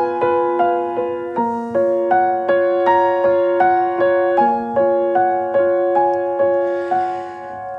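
Background music: a gentle piano melody of evenly paced single notes, a little under two a second, each struck and left to ring. It eases off near the end.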